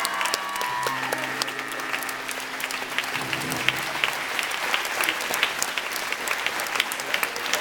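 Theatre audience applauding steadily. Held chords from the show's live music ring under the clapping for the first few seconds, then stop.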